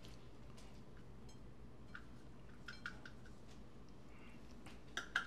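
Chicken breast being pressed and turned in a dish of almond-Parmesan breading: faint handling sounds with a few light clicks against the dish, then a couple of sharper knocks near the end, over a faint steady hum.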